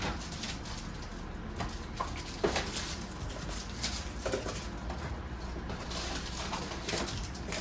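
Snack packets and plastic storage containers being handled: a few scattered light knocks and clicks over a low steady hum.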